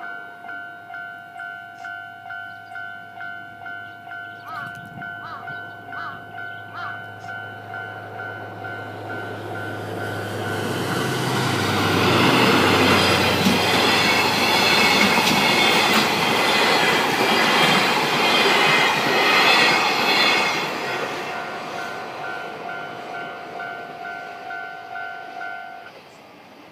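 Railway level-crossing warning bell ringing in a steady, evenly repeated ding as a freight train comes up and passes over the crossing. The train's passing swells loud about ten seconds in and lasts some ten seconds, with wheel clatter over the rail joints. Once the train has gone the bell is heard again, and it stops near the end.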